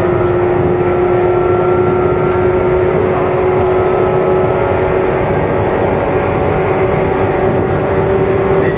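JR East 107 series electric train under way: a steady whine from its traction motors and gearing that rises slowly in pitch as it gathers speed, over the rumble of wheels on rail.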